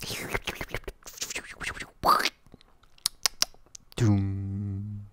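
A man voicing a comic's gore and death sound effects with his mouth: a run of wet clicks and spitting noises, a loud rasping hiss about two seconds in, then a low drawn-out groan lasting about a second near the end.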